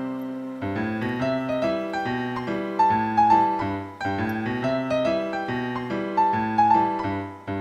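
Background music: a gentle piano tune over a bass line, its short phrase repeating about every three and a half seconds.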